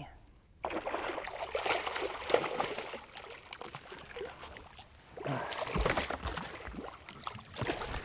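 Water splashing and sloshing in irregular bursts as a hooked redfish thrashes at the surface beside the skiff during the fight.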